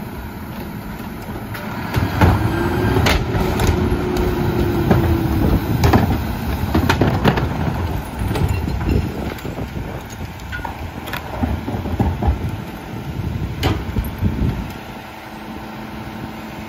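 Rear-loader garbage truck idling while wheeled trash carts are tipped into its hopper, with repeated sharp knocks and bangs of carts and trash against the hopper. A held whine comes in about two seconds in and lasts a few seconds. The knocking stops and everything drops back to the engine rumble near the end.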